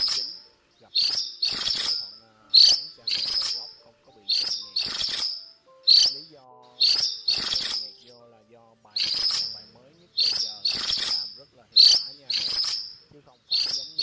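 Minivet calling: sharp, high, ringing notes, often in pairs about half a second apart, repeated every second or so. These are the flock calls used to draw the birds in.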